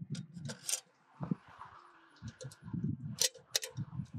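Sharp clicks and light knocks of the clamp-on ultrasonic transducer's metal mounting frame and covers being handled and fitted: a few clicks in the first second and two more about three seconds in, over low handling rumble.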